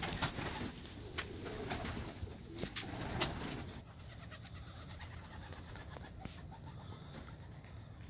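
Domestic pigeons cooing, with scattered clicks and knocks during the first few seconds, after which it is quieter.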